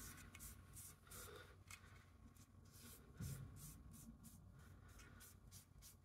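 Faint rubbing of a cotton pad dampened with isopropyl alcohol wiped back and forth over a CPU heatsink's contact plate, taking off old thermal paste, in quick repeated strokes.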